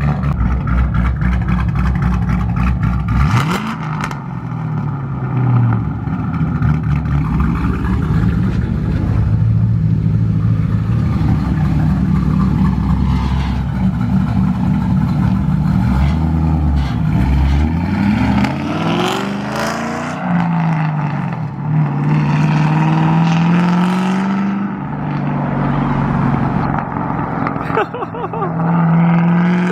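A 2005 Ford Mustang GT's cammed 4.6-litre V8 running loud through Carven R series mufflers. It idles for about three seconds, then is revved up and let fall back several times.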